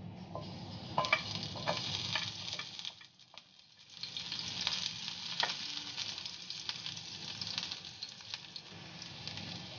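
Sliced garlic sizzling in hot oil in a nonstick frying pan as it is tipped in from a bowl and spread with a slotted spatula, with a few sharp clicks of bowl and spatula on the pan. The sizzle dips briefly about three seconds in, then carries on steadily.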